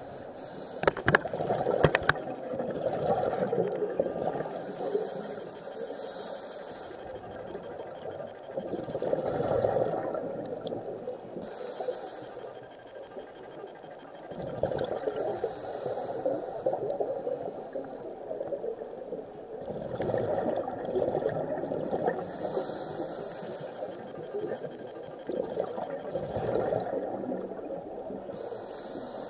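Scuba diver's regulator breathing underwater: a hissing inhale followed by a bubbling exhale, repeating every five or six seconds. A few sharp clicks about a second in.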